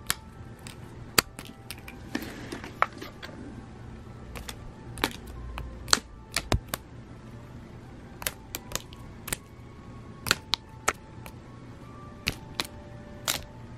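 A cat batting and swatting at a dangling paper toy: irregular sharp paper crackles and taps, with a short rustle about two seconds in.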